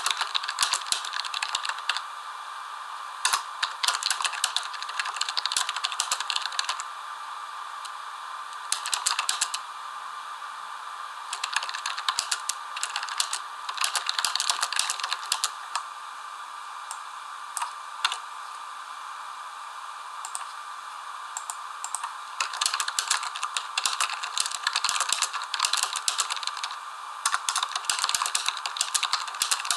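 Rapid clicking and rattling of small hard objects, in bursts that stop and start every few seconds, over a faint steady tone.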